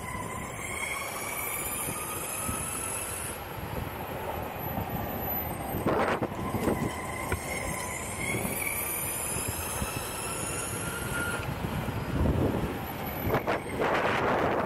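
Electric skateboard hub motors whining as the board speeds up, the whine rising in pitch twice, over the steady rumble of urethane wheels on asphalt. Two louder rushes of noise come about six seconds in and near the end.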